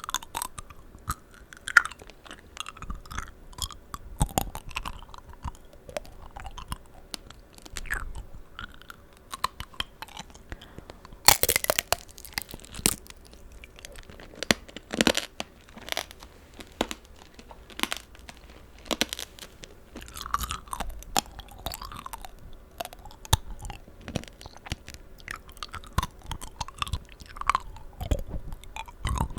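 Close-up chewing and crunching of tanghulu: the hard sugar-candy shell on the fruit cracks under the teeth with crisp crackles, mixed with wet, sticky chewing of the fruit. The loudest crunches come about 11 and 15 seconds in, as fresh bites crack the candy coating.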